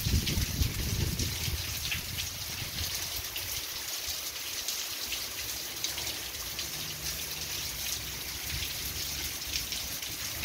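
Heavy rain falling steadily on foliage and ground, a dense hiss full of small drop patters. A low rumble sits under it during the first few seconds, then fades.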